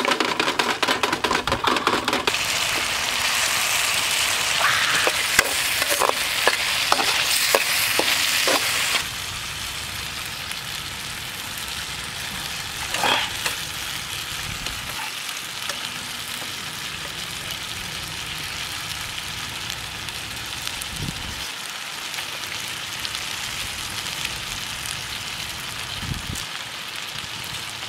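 Frog meat and green beans sizzling in a wok on a portable gas stove, with the spatula clattering against the pan in quick strokes. The sizzling is loudest for the first nine seconds or so, then settles to a quieter, steady sizzle.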